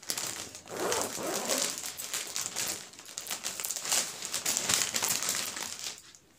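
Plastic packaging crinkling and rustling in uneven bursts as a saree is unwrapped and pulled out of its packet; it stops shortly before the end.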